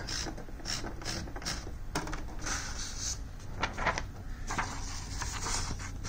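Printed sheet being taken out of an Olympia Electronic Compact 2 typewriter: irregular mechanical clicks from the paper mechanism, mixed with a few swishes of paper.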